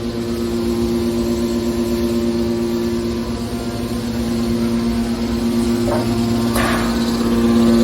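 Industrial machinery running with a steady, loud hum. Two short metallic clanks come near the end.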